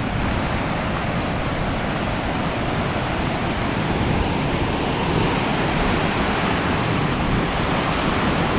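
Fast mountain river running white over rocks: a steady rush of water.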